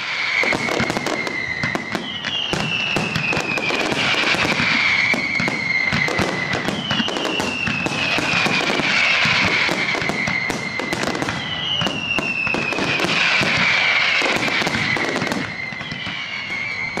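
Fireworks display at full barrage: a dense, continuous run of bangs and crackling bursts. A long falling whistle is heard four times, each lasting several seconds.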